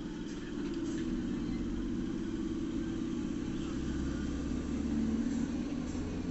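Electric suburban passenger train passing close by: a steady rumble of its wheels running on the rails, getting a little louder about half a second in.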